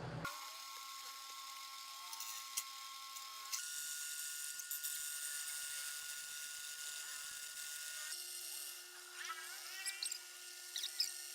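A small high-speed electric motor running with a steady whine, its pitch and tone changing abruptly twice. Brief wavering, rising and falling squeals near the end.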